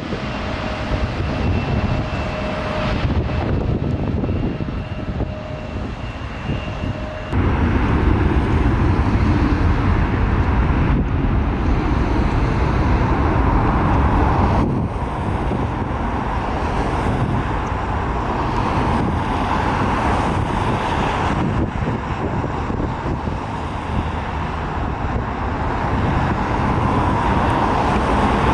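Jet airliner engine noise, a steady dense rumble with two faint steady whining tones through the first seven seconds. The sound changes abruptly twice, getting louder about seven seconds in and shifting again about fifteen seconds in.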